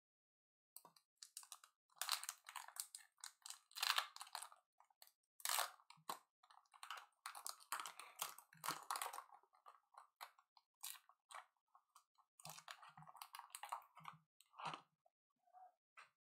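Plastic trading-card pack wrapper crinkling and tearing as it is opened by hand, in irregular crackly bursts starting about a second in.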